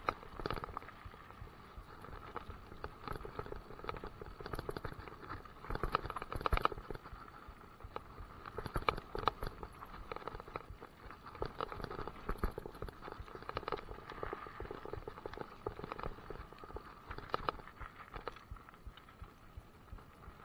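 Mountain bike riding fast over a gravel forest trail: tyres crunching on loose gravel, with a continual irregular rattle and clatter from the bike as it goes over bumps, the hardest knocks about six and nine seconds in.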